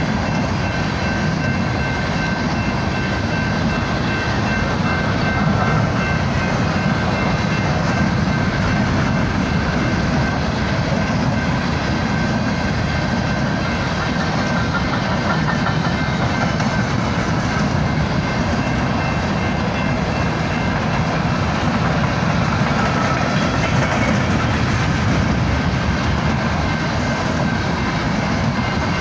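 Empty coal gondolas of a freight train rolling past, their steel wheels on the rails making a steady, unbroken rumble.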